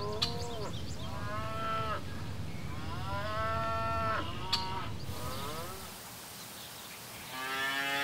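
Dairy cattle mooing, about five separate drawn-out calls that rise and fall in pitch, the last one near the end. Two sharp clicks, one just after the start and one about four and a half seconds in.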